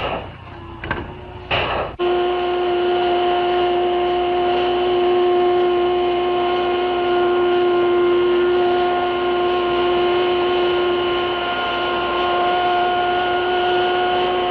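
Metal-cutting machine's spindle working through several stacked thicknesses of sheet metal: a few sharp clicks, then about two seconds in a loud, steady high whine with overtones sets in.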